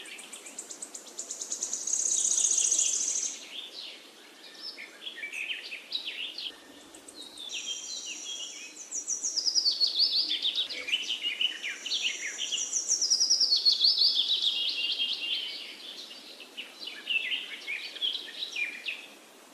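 Several songbirds singing and chirping, with a high rapid trill a couple of seconds in and long runs of notes falling in pitch around the middle and later.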